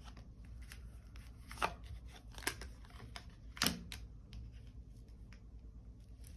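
Tarot cards being handled and laid down, a few light clicks and taps, the clearest about one and a half, two and a half and three and a half seconds in.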